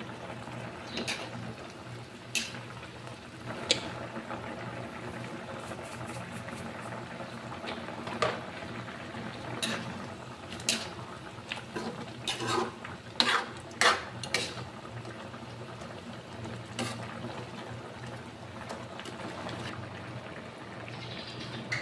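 Pork and chicken adobo boiling steadily in a metal wok, with a metal ladle clinking and scraping against the pan as it stirs. The knocks come now and then, with a loud cluster of several in quick succession around the middle.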